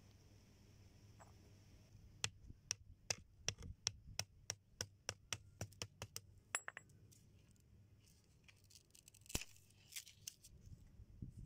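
A quick run of sharp taps or clicks, about four a second, starting about two seconds in and lasting some five seconds, then a few scattered taps near the end.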